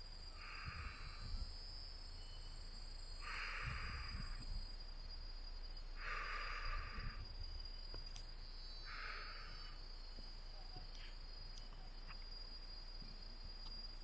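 Faint, steady high-pitched drone of rainforest insects, with four short hisses about three seconds apart.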